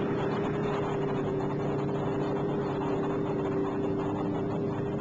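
Steady engine drone with two steady humming tones held throughout.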